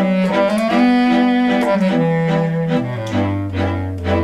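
Background music: bowed string instruments playing sustained, changing notes over a low bass line.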